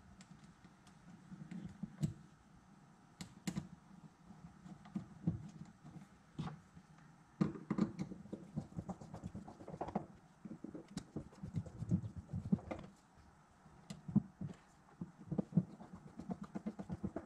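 Small metal clicks and taps of a screwdriver and parts being handled against a Suzuki LT185 carburetor body on a workbench, as screws are driven in. The taps are irregular and get busier about halfway through.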